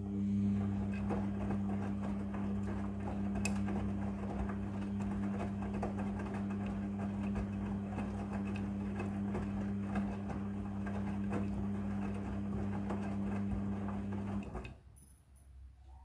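Midea front-loading washing machine tumbling a wash load: a steady motor hum with the sloshing and rustling of wet clothes turning in the drum. It stops suddenly about fourteen seconds in as the drum pauses in its wash cycle.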